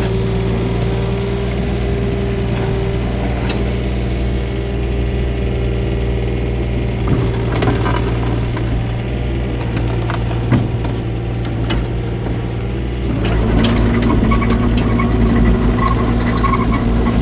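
Takeuchi TB135 mini excavator's diesel engine running steadily, with a few sharp knocks along the way. About thirteen seconds in it gets louder and a steady higher whine joins it.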